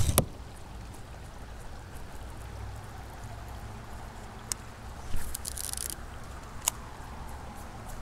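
Water trickling and dripping around a kayak, with a sharp splash and knock at the very start. About five seconds in, a short hiss as a baitcasting reel is cast and line runs off the spool, followed by a single click.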